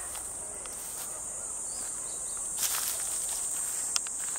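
Insects in the grass keep up a steady, high-pitched buzzing chorus. A few faint clicks and one brief rustle, about two-thirds of the way through, sound like footsteps in dry grass.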